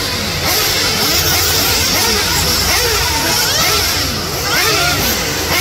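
Several 1/8-scale nitro RC buggies with small two-stroke glow-fuel engines racing together, each engine's buzz rising and falling in pitch as it throttles up on the straights and backs off for jumps and turns.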